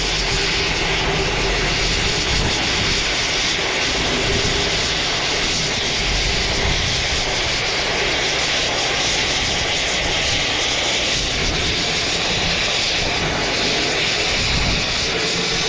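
A power tool running steadily while cutting scrap metal: a loud, even hiss with no breaks.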